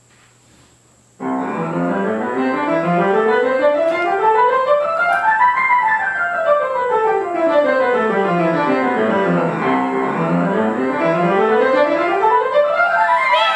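Piano playing long runs of notes that climb step by step, then fall, then climb again, starting suddenly about a second in.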